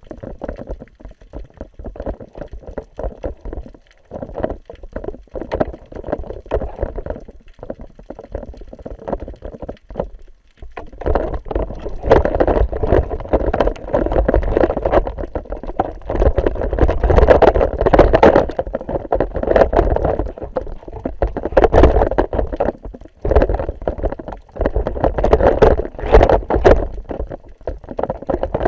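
Water sloshing and gurgling around an action camera's waterproof housing in the sea, in irregular rushes that grow much louder about eleven seconds in.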